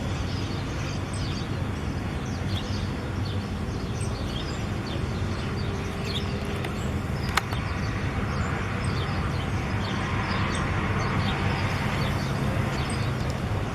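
Several birds chirping and calling in short, frequent notes over a steady low background hum, with one sharp click about seven seconds in.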